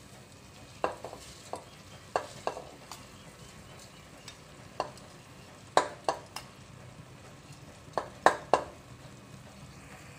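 Uncooked basmati rice being scooped by hand and dropped into a pressure cooker: irregular sharp clicks and knocks, some in quick runs of three, the loudest near the end, over a low steady background.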